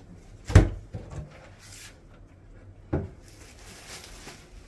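Wooden storage chest with a hinged lid being opened: a loud sharp thud about half a second in and a second knock about three seconds in, with brief light rustling between.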